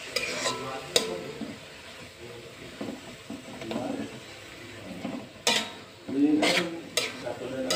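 Metal spatula stirring and scraping cassava leaves around a metal wok, with sharp clinks as it strikes the pan about a second in and twice near the end.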